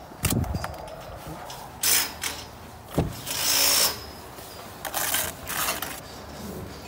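Steel brick trowel scraping through wet mortar while a buttered brick is laid on a wall, with one sharp knock about three seconds in and further rasping scrapes as excess mortar is cut off the joint.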